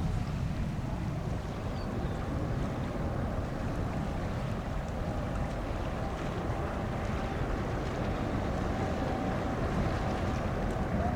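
Wind buffeting the microphone over the steady low rumble of jet airliner engines, with a faint steady engine whine.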